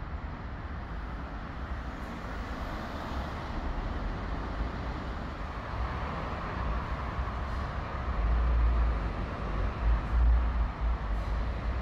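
Steady road traffic noise from the road over the underpass bridge, with heavier low rumbling about eight to eleven seconds in.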